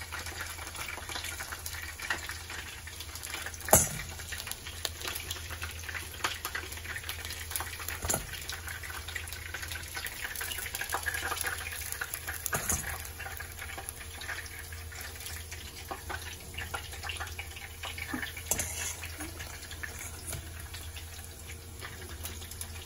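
Chicken pieces frying in oil in a skillet, sizzling and crackling steadily. A few sharp clinks come through, the loudest about four seconds in, as a fork moves the fried pieces into a stainless steel bowl.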